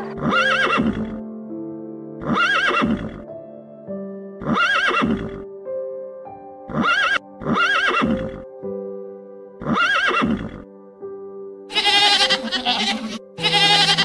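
Background music with an animal call repeated six times, about every two seconds, each call under a second long and rising then falling in pitch. Near the end a different, busier run of animal calls begins.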